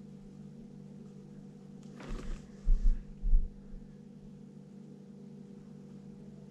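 Steady low hum, with a short scuffle of rubbing and three dull thumps about two to three and a half seconds in: a hand and arm working a pencil drawing on the tabletop that the camera rests on.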